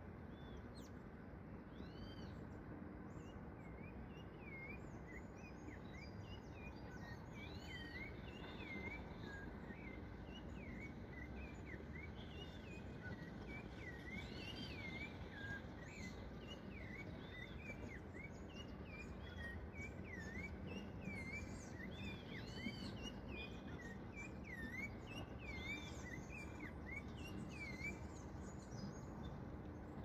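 Rufous-bellied thrush (sabiá-laranjeira) singing its fluted song: a long, faint run of clear whistled notes, each curving up or down in pitch, over steady low background noise.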